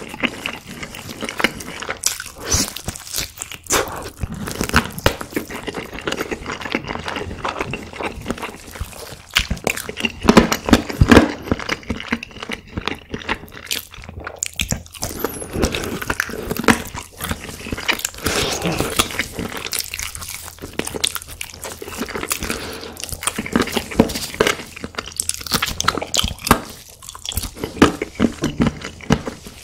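Close-miked eating sounds: crunching bites and wet chewing of food, in a dense run of small clicks and crackles that swell several times.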